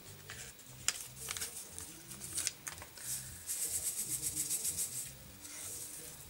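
Paper Kool-Aid drink-mix packet handled over a glass: a few soft crinkles and ticks, then a quick run of rustling shakes, about eight a second for a second and a half, as powder is tapped out of it.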